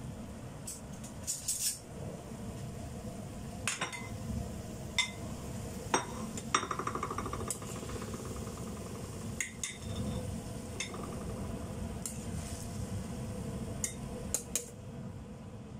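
A spatula stir-frying cauliflower in a stainless steel wok: scattered clicks and knocks against the pan, with a brief squeaky scrape about seven seconds in, over a steady low rumble.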